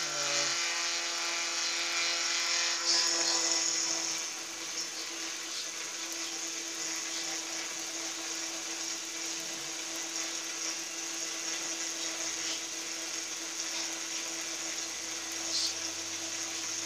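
Milling machine running, its cutter cutting metal while the table is hand-fed through the cut: a steady motor hum under a hissing cutting noise that grows louder for a second or so about three seconds in.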